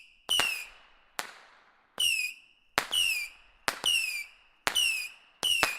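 A box of whistling fireworks going off in quick succession: a sharp crack about once a second, most with a short whistle that drops slightly in pitch, each trailing off before the next.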